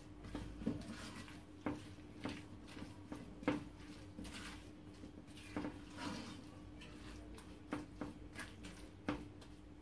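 A spatula stirring thick crushed pineapple in a metal saucepan: irregular light knocks and scrapes against the pan, with soft squishing of the fruit and a faint steady hum underneath.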